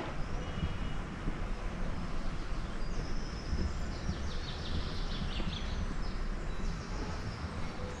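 Outdoor ambience: birds chirping high and quick, in a burst about three seconds in that lasts a couple of seconds, over a steady low rumble.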